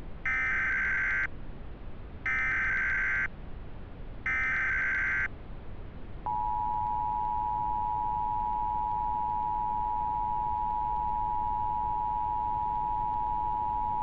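Emergency Alert System tone sequence for a tornado warning: three one-second bursts of screechy digital SAME header data, then the steady two-tone EAS attention signal held for about eight seconds, stopping just at the end.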